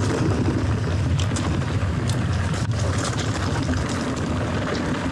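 Commencal Meta TR mountain bike rolling fast down a dirt singletrack: a steady rumble of wind on the microphone and tyres over dirt and stones, with the odd click and rattle from the bike.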